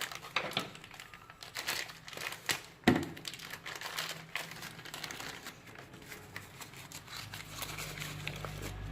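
Packaging being crumpled and torn open by hand, an irregular crinkling rustle with handling clicks, and one sharp knock about three seconds in. A faint low hum sits underneath from about four seconds in.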